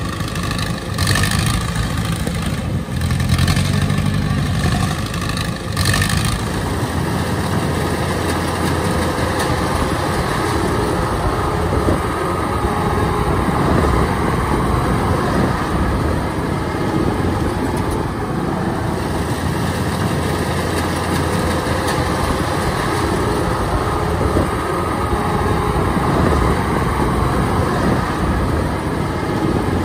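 Engines of rice-harvesting machinery running steadily: a tracked rice transporter with a few knocks in the first six seconds or so, then a Kubota DC-105X diesel combine harvester running evenly.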